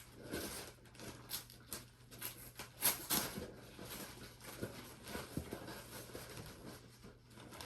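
Packaging rustling and crinkling in irregular handling noises as a plant is unwrapped, with the loudest rustle about three seconds in.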